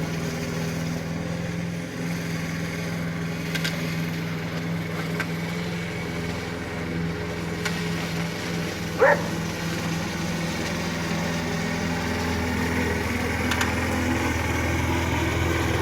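Lawn mower engine running steadily, with a dog giving one short bark about nine seconds in.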